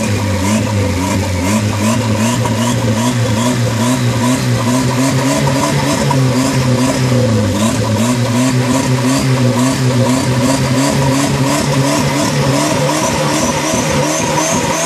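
Turbocharged Honda Civic 1.4 SOHC four-cylinder running on its first start-up after the turbo build, its idle speed wavering up and down about every second. A light, regular ticking runs alongside, and a faint high whistle creeps up in pitch near the end.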